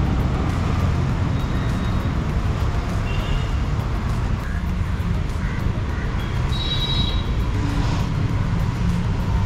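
Steady low engine rumble of motor vehicles, even and unbroken.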